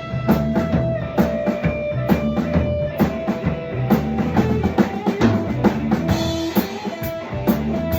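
Rock music: a drum kit playing a steady beat with bass drum under guitar.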